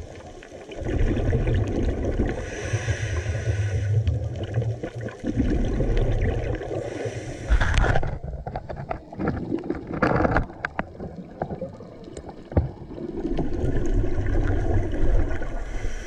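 Underwater water noise: a muffled low rumble and swish that swells and fades, with patches of fizzing hiss and scattered clicks and knocks, a few sharper knocks about halfway through.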